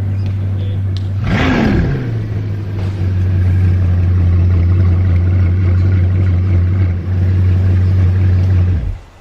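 Bugatti Chiron's quad-turbo W16 engine idling, with one quick rev blip about a second in that rises and falls back to idle. It then runs steadily and stops abruptly near the end.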